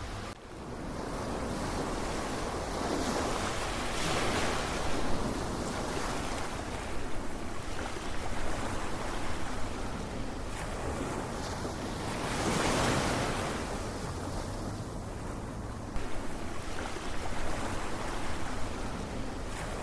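Ocean surf: a steady wash of waves that swells loudly as each wave breaks, about every eight seconds, then ebbs back.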